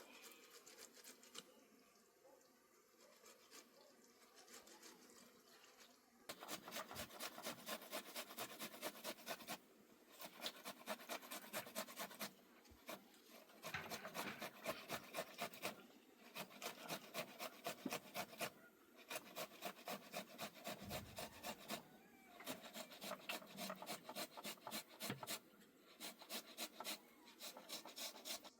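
Rapid back-and-forth rasping strokes, about five a second, in runs of two to four seconds with short pauses between them. They start about six seconds in, after faint rubbing.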